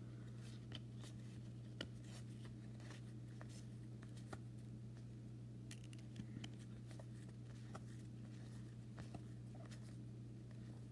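Faint scattered clicks and rustles of a thick stack of trading cards being handled, over a steady low hum.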